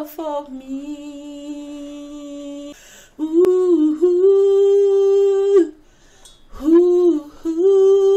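A woman singing long wordless held notes: a soft sustained note at first, then two louder held notes of a couple of seconds each with a short breath between them.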